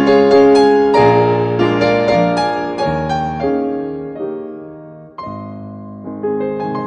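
Background piano music: a gentle melody of struck notes that dies away over a few seconds, then picks up again with a new phrase about five seconds in.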